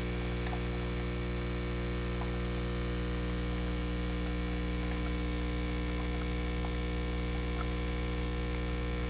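L'OR capsule espresso machine's pump running with a steady, even buzzing hum as it pulls a lungo shot.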